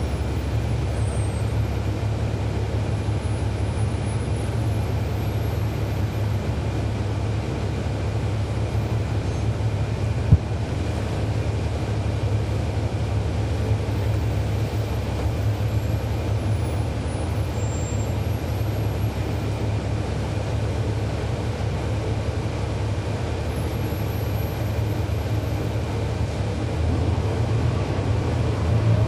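Diesel transit bus, its Cummins ISL9 engine running steadily as the bus drives, with one sharp click about ten seconds in. Near the end the engine note rises and gets louder as the bus picks up speed.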